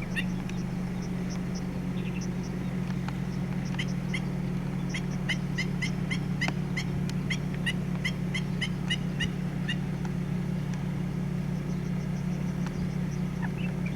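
Black-winged stilt giving short, sharp alarm calls in warning over its chicks: a few at first, then a fast run of about three a second between about 4 and 9 seconds in, then a few more near the end. A steady low hum runs underneath throughout.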